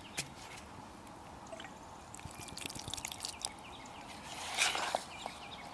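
A wooden stick stirring wet cornmeal hoe-cake batter in an enamel cup, with soft sloshing and scraping, loudest about four and a half seconds in. Scattered sharp clicks run alongside.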